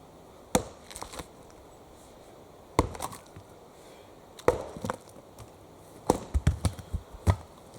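An axe chopping into a wooden log: four heavy blows about two seconds apart, each followed by smaller knocks, then a quick run of lighter knocks near the end.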